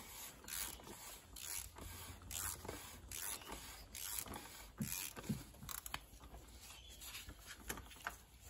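Faint, irregular rubbing and light clicks of a gloved hand and ratchet as a cartridge oil filter's housing cap is unscrewed from the engine.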